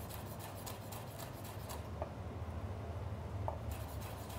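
Chef's knife chopping jalapeño on a wooden chopping board: a quick, regular run of light knocks of the blade on the wood, several a second, over a low steady hum.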